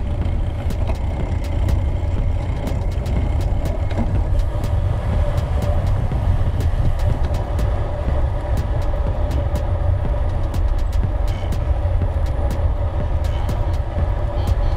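Wind rumbling on the microphone of a gravel bike in motion, over a steady hum of tyres rolling on the trail, with scattered faint ticks.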